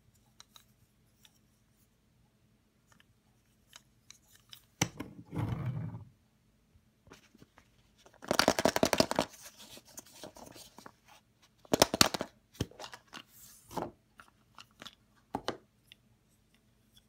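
A plastic surprise egg being handled and pulled open, with crackling bursts of plastic rustle about eight seconds in and again near twelve seconds, among scattered clicks and taps of a small wooden toy engine turned in the fingers. About five seconds in there is a knock followed by a short low rumble.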